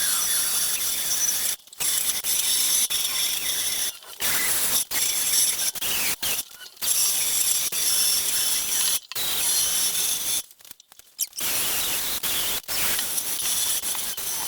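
Power drill with a brush attachment scrubbing rust off metal, running in stop-start bursts of one to a few seconds with short pauses between them.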